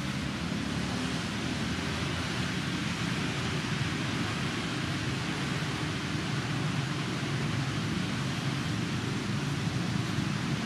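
Steady rushing background noise with a low rumble under it and no distinct events.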